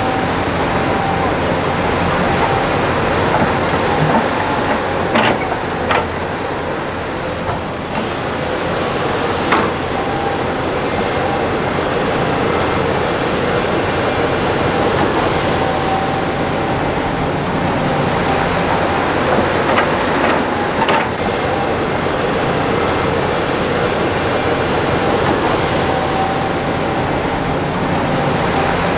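Hydraulic excavator's diesel engine and hydraulics running hard while it digs and loads soil, a steady drone with a faint whine, broken by a few sharp knocks.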